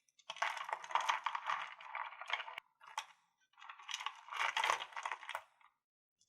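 Crystals clinking and rattling together in two bursts of many small clicks, each about two seconds long, with a lone tap in between.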